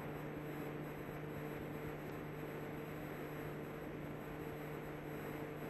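Steady low electrical hum under a soft, even hiss, with no voice: the background noise of the microphone and recording chain.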